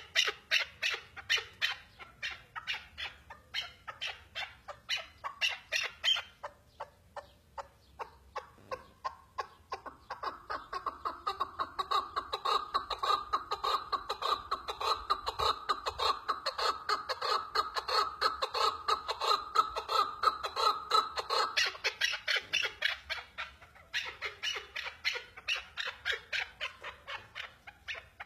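A chukar partridge calling a rapid, rhythmic series of clucking notes, several a second. From about a third of the way in the calls drop lower and grow louder for some ten seconds, then go back to lighter, higher notes.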